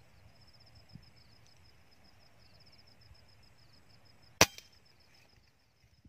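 A Semar Neo air rifle fires once about four and a half seconds in: a single sharp crack, followed a moment later by a fainter click. A high-pitched pulsing trill runs steadily in the background.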